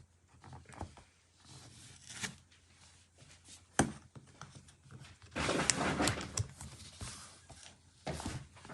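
Packaging being handled: scattered light clicks and one sharp tap about four seconds in, then about a second of tearing or ripping.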